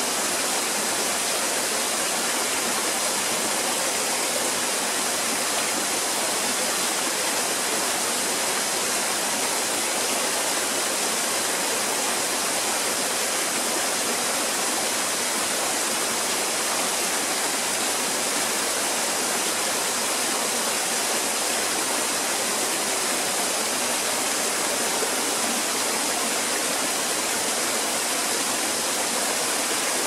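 Small cascading waterfall, about 10 to 12 feet high, with thin streams of water splashing steadily down rock ledges into a shallow pool. It makes an even, unbroken rush of falling water, bright and hissy with little low rumble.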